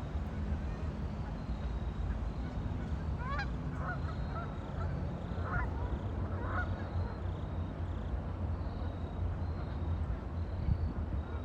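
Waterfowl calling on a lake: a run of short calls from about three to seven seconds in, and more near the end, over a steady low rumble.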